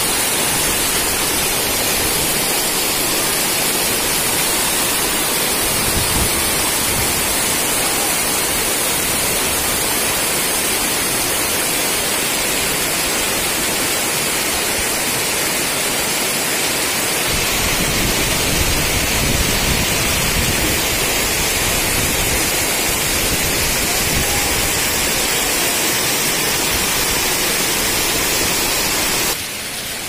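Waterfall water rushing and splashing down over rocks: a steady hiss that drops sharply in level just before the end.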